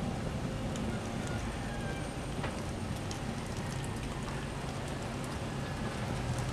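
Cardboard drink cartons and a snack box burning in a metal fire pit: flames rushing steadily with scattered small crackles and pops over a low rumble.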